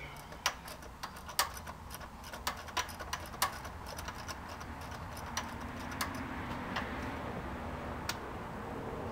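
Socket wrench ratchet clicking in short, irregular strokes while the belt tensioner pulley bolt on a Ford 2.3L engine is worked loose. A few more clicks follow, over a faint steady hum that slowly grows louder in the second half.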